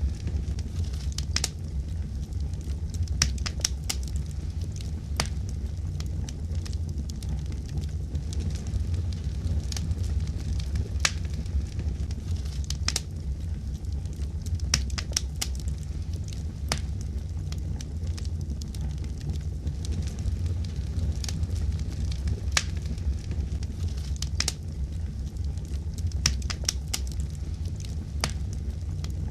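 Fireplace wood fire crackling, with irregular sharp pops and snaps over a steady low rumble.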